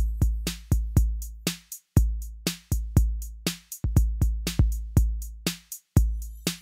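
Electronic background music: a drum-machine beat with a deep bass drum, sharp snare hits and hi-hat ticks, about two beats a second.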